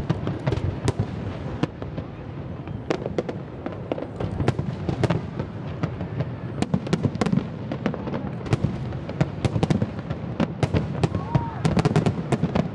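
Aerial fireworks going off in quick succession: many sharp bangs and crackles over a steady low rumble, coming thickest near the end.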